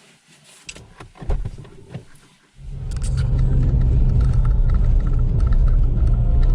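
A few small clicks and knocks, then about two and a half seconds in a loud, steady low car rumble begins and carries on.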